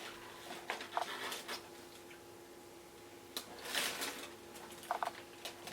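Light handling of a sneaker box and its packaging: scattered soft clicks and rustling. Near the end comes a brief run of quick high squeaks.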